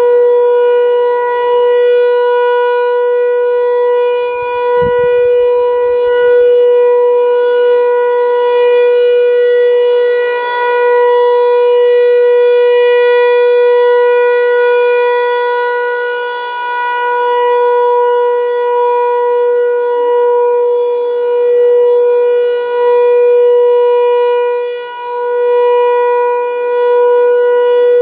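American Signal Tempest T-128 rotating electromechanical siren sounding the steady Alert tone at one unchanging pitch. It swells and fades as the horn turns, loudest and brightest about halfway through as it sweeps past facing the listener.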